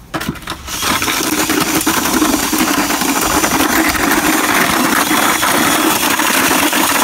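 Electric drill with a paddle mixer stirring concrete patching mortar in a plastic bucket. It gives a short burst just after the start, then runs steadily from about a second in.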